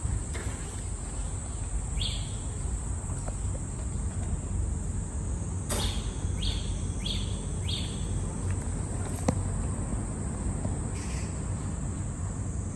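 Outdoor ambience: a steady high insect drone over a low rumble, with a few short bird chirps, three of them in quick succession near the middle, and a couple of sharp clicks.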